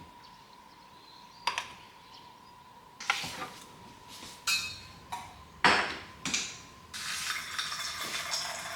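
Kitchen dishes and utensils clinking and being set down several times, then about two seconds of steady rushing noise, like a short run of water, that stops abruptly near the end.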